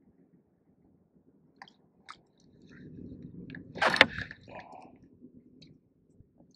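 Rubbing and rustling against the body-worn camera's microphone as the rod hand swings up close to it, with one loud scrape about four seconds in, after a few faint clicks.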